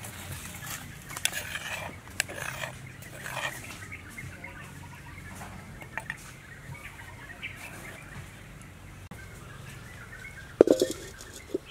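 A metal spoon scraping and tapping moist spice paste onto a ceramic plate in short clicks. About ten and a half seconds in, a loud metallic clank with a brief ring as a wok is set down on a clay charcoal stove, then a smaller knock.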